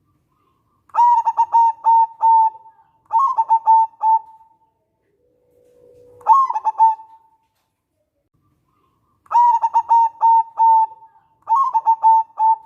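A zebra dove (perkutut) cooing: five phrases of quick, stuttering notes with pauses between them, one of them opened by a lower held note.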